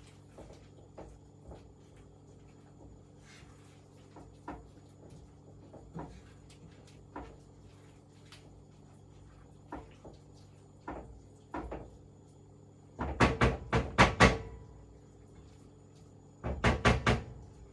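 A utensil knocking and clattering against a cooking pan: scattered light taps, then two quick runs of loud knocks near the end, over a faint steady hum.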